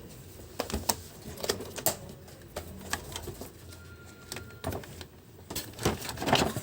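Irregular clicks and knocks of hard plastic vacuum cleaner housing parts being handled and pulled apart during disassembly, coming more often near the end.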